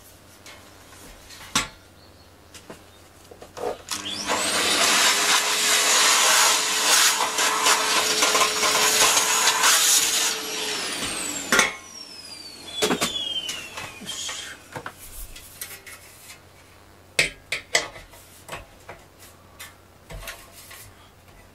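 Vacuum cleaner switched on about four seconds in, running for about six seconds, then switched off, its motor whine falling away as it spins down. Scattered knocks and clicks of things being handled come before and after.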